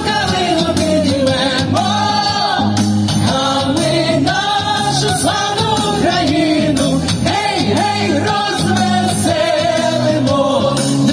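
A group of male and female singers singing together into microphones over an instrumental backing with a steady bass line, amplified through PA speakers.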